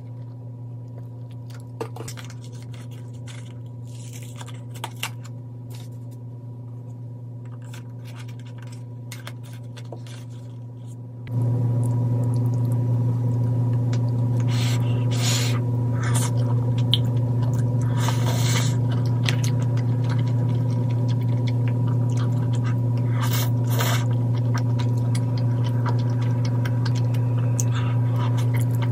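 Mukbang eating sounds of spicy tteokbokki with glass noodles: wooden chopsticks clicking and scraping in a plastic container, and chewing. A steady low hum runs underneath and gets louder about eleven seconds in.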